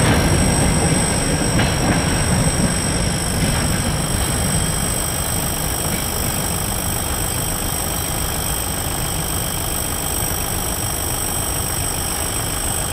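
Freight train of covered hopper wagons rolling away, its wheel noise fading over the first few seconds and leaving a steady low rumble. A thin high whine runs throughout and cuts off suddenly near the end.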